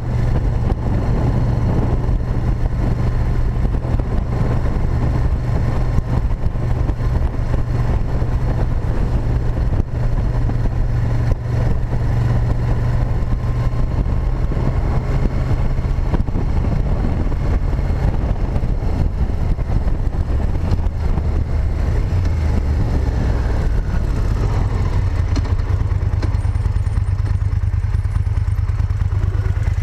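Moto Guzzi Griso 8V SE's transverse V-twin running at a steady cruise, heard onboard with the rush of riding wind. Near the end the engine note and wind noise drop as the bike slows.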